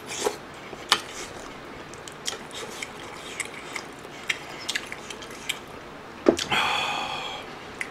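Close-up eating sounds of a spicy stew: chewing and mouth clicks with a spoon tapping against the metal pot, then a louder, drawn-out slurp of hot broth about six and a half seconds in.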